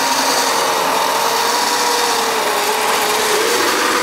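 AmpFlow M27 electric motor, through a 3:1 gear reduction and a chain, turning the walker's two half-inch ACME screw actuators under load as they lift a person from sitting to standing. It is a loud, steady whine over broad mechanical noise, the pitch sagging a little and picking up again about three and a half seconds in.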